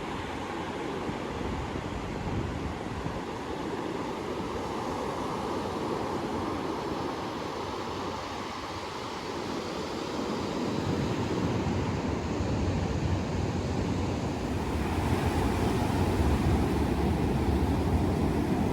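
Ocean surf washing onto the beach, with wind buffeting the microphone; the low wind rumble gets heavier about halfway through.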